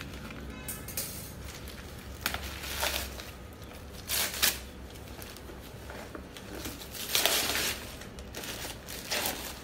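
Gift wrapping paper being torn and crumpled off a large box, in several separate rips and crinkles.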